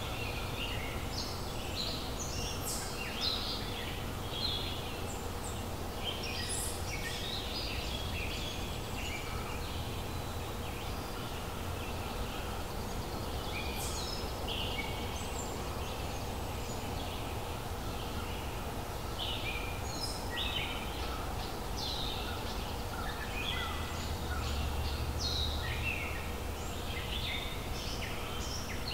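Forest songbirds chirping and trilling, many short calls overlapping without a break, over a steady low rumble.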